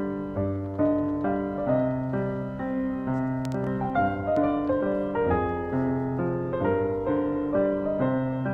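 Background piano music: a calm, steady run of notes and chords.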